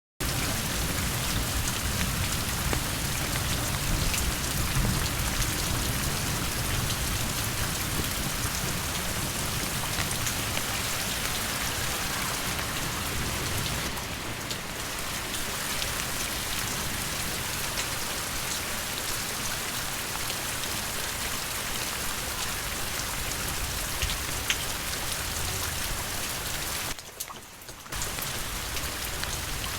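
Steady rain falling, with individual drops ticking sharply now and then. The sound dips briefly for about a second near the end.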